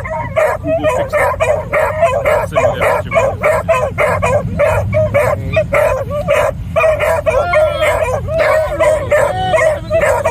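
Pack of rabbit hounds barking and baying in quick succession, several voices overlapping at about three barks a second, with drawn-out howls and yelps mixed in toward the end. It starts abruptly. The dogs are in full cry, as hounds sound when running a rabbit.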